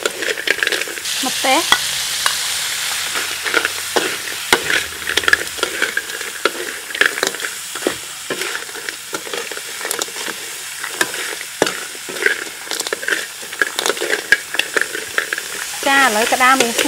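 Whole crabs stir-frying in a large metal wok: a steady sizzle with frequent clicks, scrapes and knocks as the spatula turns the crab shells against the pan.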